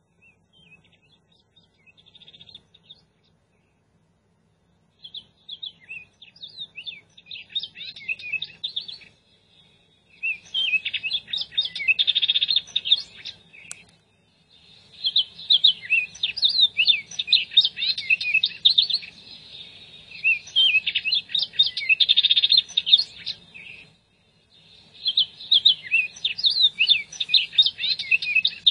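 Birds chirping: many quick, high chirps tumbling over one another in bursts a few seconds long, with short pauses between, faint and sparse at first.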